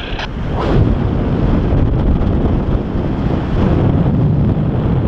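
Airflow of a paraglider in flight buffeting the camera's microphone: loud, steady wind noise that builds over the first second and then holds.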